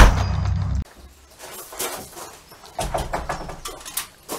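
An intro sound-effect drone cuts off abruptly under a second in. Then quiet background with scattered light clicks and knocks from handling a Daystate Pulsar bullpup air rifle and its scope.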